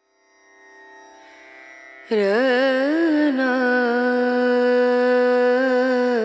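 Background music: a soft drone fades in, then about two seconds in a loud, long-held melodic note with small wavering turns takes over and breaks off near the end.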